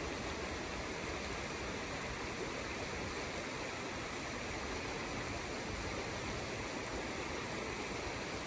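Shallow rocky river flowing steadily over stones, an even rushing of water.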